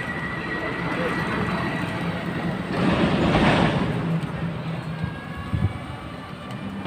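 An engine runs steadily in the background with a low hum. A louder rush of noise swells and fades about three seconds in, and there is a short knock near the end.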